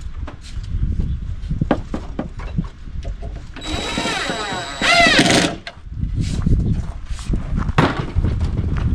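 Power drill running in two short bursts a few seconds in, its whine rising and falling in pitch as it drives a fastener into wood, amid knocks and clatter from handling the boards.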